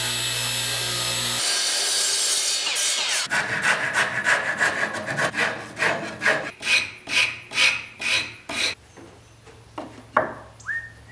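Table saw running, then spinning down with a falling whine about three seconds in. After that, quick back-and-forth rasping strokes of a hand tool on wood, about two to three a second, thinning out near the end: the opening in the rail is being worked to fit a walnut block.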